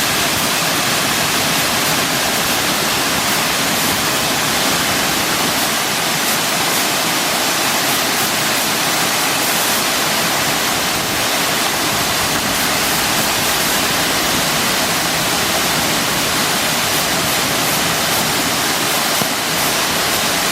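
A rain-fed waterfall that flows only after heavy rain, its water pouring down in a loud, steady rush.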